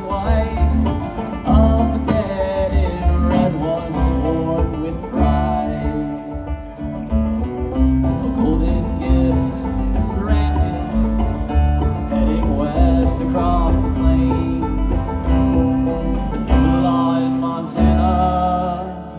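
Bluegrass band playing live: banjo and acoustic guitar picking over an upright bass.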